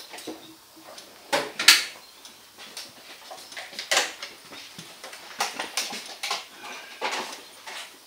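A handful of short, irregular knocks and clicks: someone moving about and handling the motorcycle or tools in a workshop.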